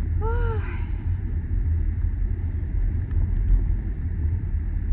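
Steady low rumble inside a car cabin. Just after the start comes one short pitched note that rises and falls.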